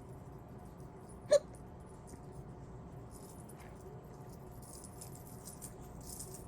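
A single short, sharp hiccup from a woman, about a second in, followed by faint rustling.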